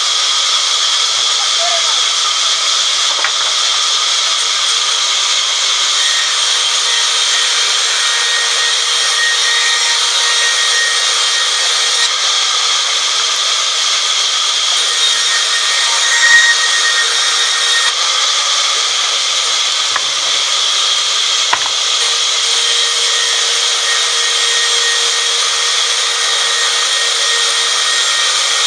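Sawmill band saw blade cutting lengthwise through a teak log, a loud steady sawing noise, with a couple of brief knocks past the middle.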